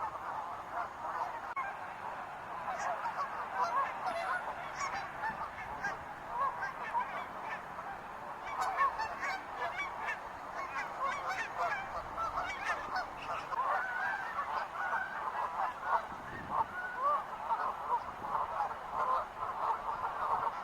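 A large flock of wild geese honking, many overlapping calls.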